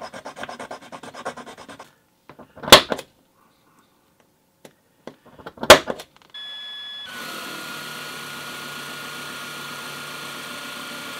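A metal file scraping in quick strokes on the die-cast metal rivet posts of a toy car body, flattening them. Then two loud sharp metal strikes come a few seconds apart, and a small drill starts and runs steadily with a high whine as it drills the posts.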